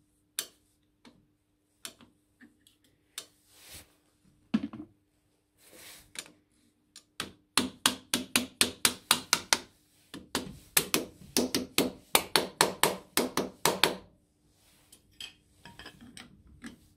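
Soft-faced mallet tapping a round steel clutch disc to seat it in a machine chuck: a few scattered knocks and clicks of the part being handled, then a quick run of light taps at about four to five a second for several seconds, with a short break partway through.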